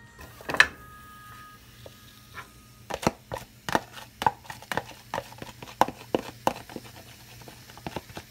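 Marinated pork rib pieces tipped from a bowl into a nonstick frying pan, landing with one loud knock about half a second in. From about three seconds, a run of quick, irregular clicks and knocks of the bowl and meat against the pan.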